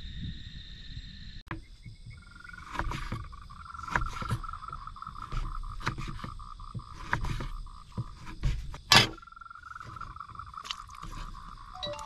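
Kitchen knife chopping meat on a wooden bamboo cutting board: irregular sharp knocks of the blade on the board, with the loudest knock near 9 seconds. A continuous pulsing trill runs in the background.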